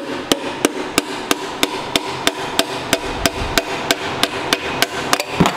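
Hammer tapping a piston and connecting rod out of its cylinder bore in a Ford Coyote V8 block: sharp, evenly spaced taps at about three a second.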